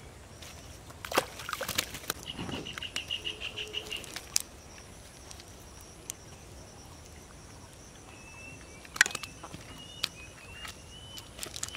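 A cast net rustling and crackling, with caught fish flapping and slapping in the mesh as they are picked out by hand; the sharp slaps come mostly in the first few seconds, with one more about nine seconds in. A short high trill sounds early on, and short high chirps come near the end.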